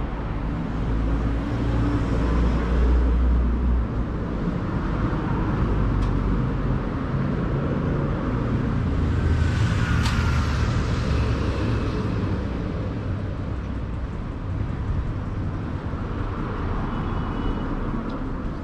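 Road traffic on a city street: a steady rumble of cars, with one vehicle passing close about halfway through.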